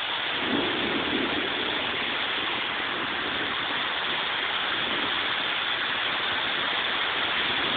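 Torrential storm rain pouring down with a steady, even hiss.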